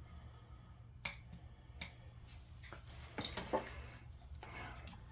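Sharp plastic clicks and knocks from a Scepter gas can's spout being worked, loudest in a cluster a little past the midpoint, with a short hissing rustle near the end.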